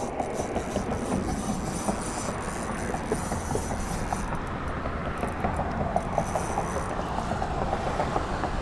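Spinning reel cranked steadily while reeling in a hooked fish under load, its gears giving a fast run of small clicks.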